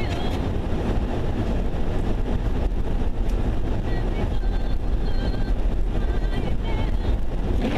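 Steady low rumble of engine and tyre noise heard from inside a vehicle driving on the highway.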